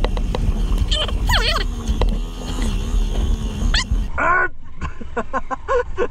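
A man laughing loudly in long bending whoops, over the low rumble of a motorcycle engine and wind. About four seconds in the rumble falls away and the laugh breaks into a quick run of short "ha-ha" bursts.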